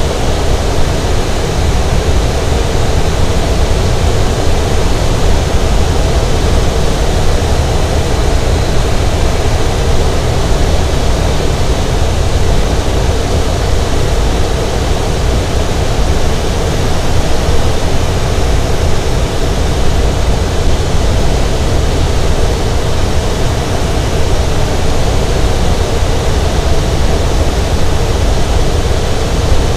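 Steady rush of airflow inside a glider's cockpit while it climbs on aerotow, a loud, even hiss with a low rumble underneath.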